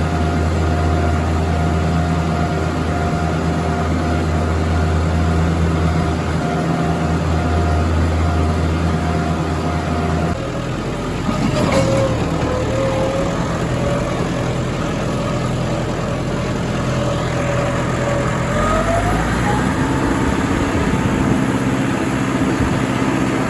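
A tractor engine running steadily while mowing. About ten seconds in the engine note changes abruptly, and a higher whine wavers and then rises.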